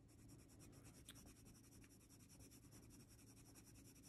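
Faint colouring-pencil strokes scratching on paper, with a couple of light ticks, over near-silent room tone.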